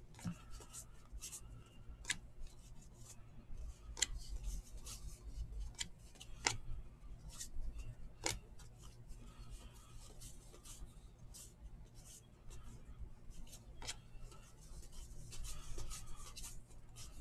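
A stack of baseball cards being flicked through by hand: faint rubbing of cardboard sliding over cardboard, with irregular soft clicks and snaps as single cards are pulled off and placed on another stack.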